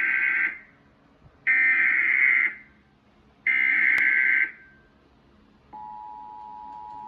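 Emergency Alert System SAME header: three bursts of rapid, screeching data tones about a second long, two seconds apart, the first already underway. Together they encode the flash flood warning as a digital header sent three times. Near the end the steady two-tone EAS attention signal starts.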